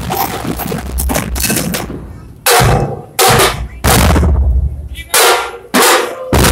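Dhol and tasha drums of a street drumming troupe playing a fast, dense rhythm that breaks off about two seconds in. After that the drums come down together in heavy unison strokes, five very loud hits each lasting about half a second.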